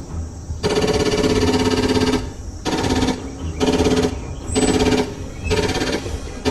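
A toy sniper rifle's electronic sound chip plays rapid-fire gunshot effects. Each burst is a fast rattle over a buzzy tone. A long burst comes first, then four short bursts in quick succession.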